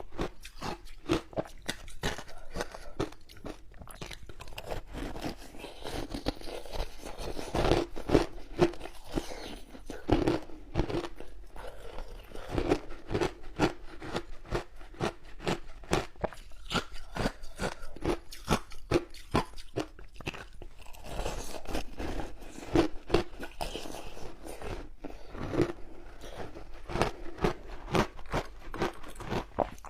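Close-up crunching and chewing of ice: repeated irregular bites and crackling crunches as frozen flavoured ice is chewed.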